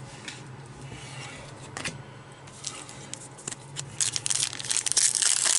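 Foil wrapper of a Donruss baseball card pack crinkling loudly as it is twisted and torn open by hand, starting about four seconds in. Before that, quieter rubbing and a couple of clicks of cards being handled.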